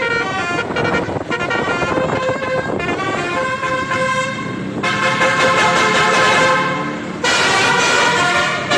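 Telolet (basuri) multi-tone musical bus air horns playing short melodies, note stepping to note. One tune gives way to another about five seconds in and again about seven seconds in, each louder, over road and engine noise.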